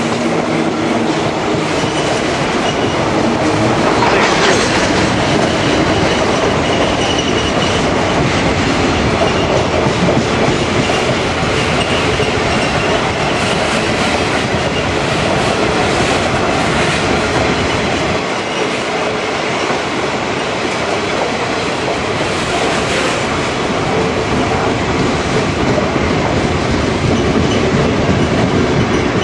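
Diesel-hauled cattle train's livestock wagons rolling past close by, steel wheels clattering steadily on the rails.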